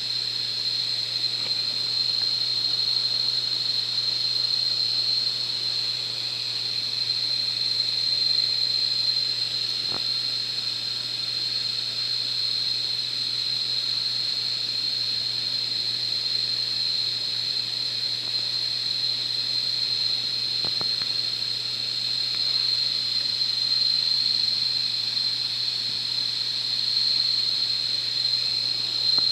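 Steady low hum and hiss with a constant high-pitched whine; two faint clicks, about ten and about twenty-one seconds in.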